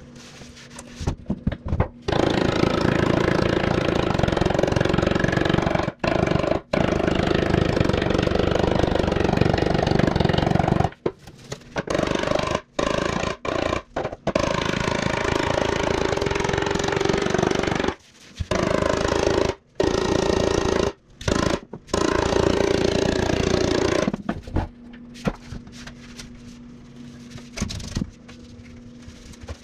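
A loud power tool working the sheet-steel fuel tank, running in long stretches that stop abruptly several times, over a low steady hum.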